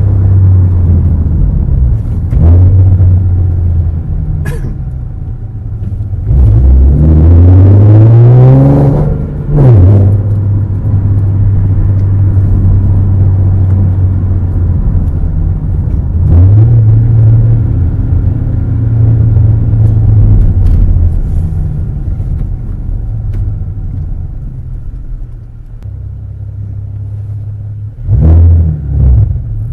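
V6 Chevrolet Camaro engine heard from inside the cabin while driving: a steady engine note that rises in pitch as the car accelerates about a third of the way in, settles into a cruise, picks up again around the middle, and eases off before climbing once more near the end.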